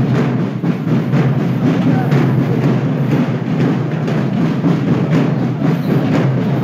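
Parade drums playing a steady marching beat.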